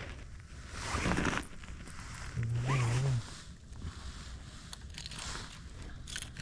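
Wind rumbling on the microphone. About a second in there is a short zip-like rustle, and a little before the middle a brief low hum.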